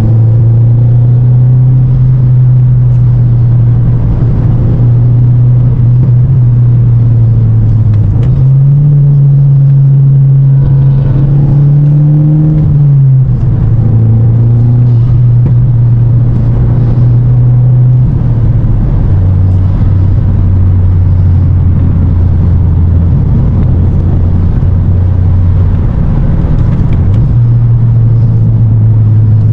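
Volkswagen MK8 GTI's 2.0-litre turbocharged four-cylinder heard from inside the cabin while driving: a steady low engine drone over road noise. Its pitch steps up about eight seconds in, drops back around thirteen seconds, sits lower from about nineteen to twenty-seven seconds, then rises again.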